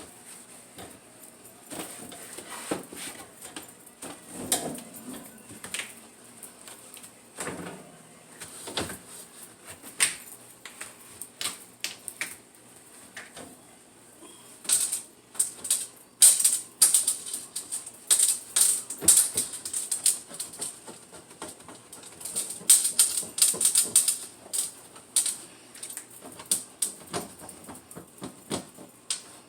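Irregular clicking, knocking and rubbing from handling and scrubbing refrigerator parts during cleaning, busier and louder in the second half.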